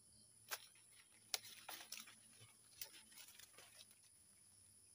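Dry leaves and undergrowth rustling and crackling in a quick run of short, sharp crackles over about three seconds, over the steady high chirring of insects.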